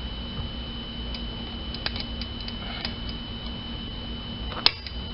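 Small metallic clicks of pliers working a spring-type fuel hose clamp on a rubber fuel hose, then one sharp snap about four and a half seconds in as the clamp springs shut onto the hose once its holding cap is pulled off. A steady hum and thin whine run underneath.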